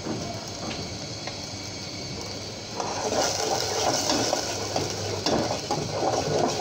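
A long metal spoon stirring a watery spice paste in an aluminium cooking pot, sloshing and scraping against the metal. The stirring starts about three seconds in; before that only small ticks of the spoon.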